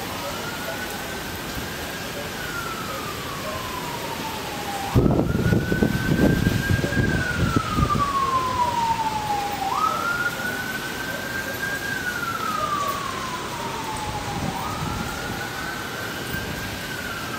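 A siren wails, rising quickly and then falling slowly in a repeating cycle about every five seconds, over steady rain noise. About five seconds in, a burst of low rumbling noise lasts a few seconds.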